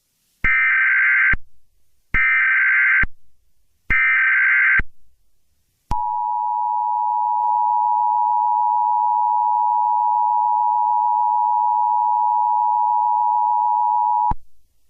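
Emergency Alert System SAME header: three bursts of digital data tones, each about a second long and a second apart. They are followed by the EAS two-tone attention signal (853 and 960 Hz), held steady for about eight seconds before it cuts off. Together they mark the start of a new emergency broadcast.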